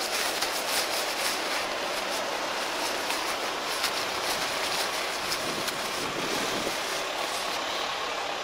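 Nylon rain poncho rustling and crinkling as it is stuffed by hand into its stuff sack: a continuous rustle with faint sharper crackles.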